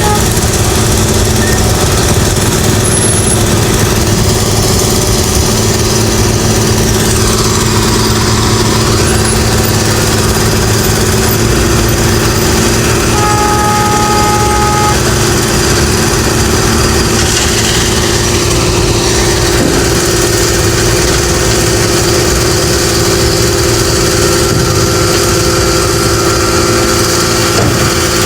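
An engine running steadily at an even pitch, with a short two-note tone, like a horn or beeper, sounding for about a second and a half about halfway through.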